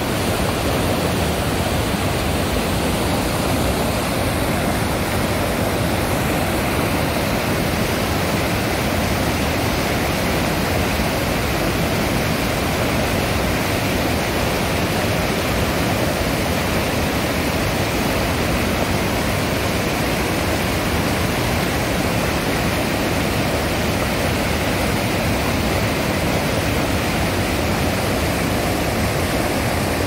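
Reservoir overflow water rushing hard in a steady, loud rush; the flow is high and strong enough to be dangerous after the water rose sharply in two days.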